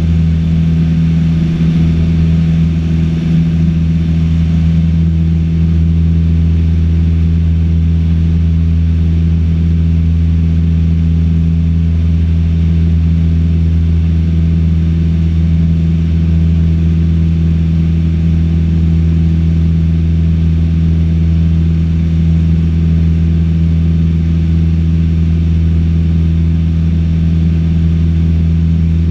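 Cessna 152's four-cylinder Lycoming engine and propeller running steadily at climb power, heard inside the cockpit as a loud, even drone.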